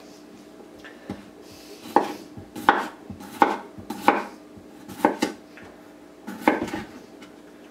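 Butcher knife chopping through potatoes and knocking on a wooden cutting board: a series of about seven sharp chops spaced under a second apart, with a short pause before the last one.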